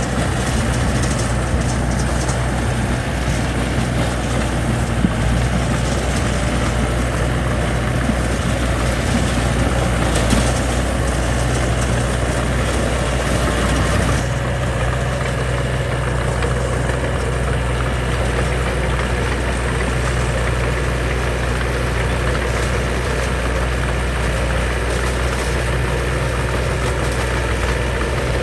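Diesel engine of heavy earthmoving machinery running steadily, with a constant low hum and mechanical noise over it.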